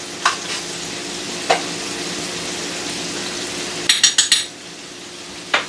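Fish nuggets deep-frying in hot oil in a metal pot, a steady sizzle, while a metal spoon stirs them and knocks against the pot. A quick run of clinks comes about four seconds in, after which the sizzling is quieter.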